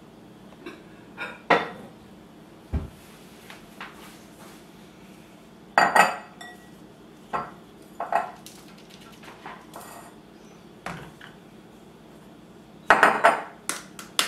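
Glass bowl and electric coffee grinder clinking and knocking on a stone countertop as ground sunflower seed flour is tipped and tapped out of the grinder into the bowl. The knocks are scattered, with a quick run of them near the end.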